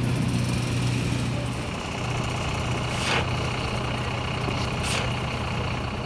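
A vehicle engine idling steadily, with a snow shovel scraping across snow-covered pavement twice, about three and five seconds in.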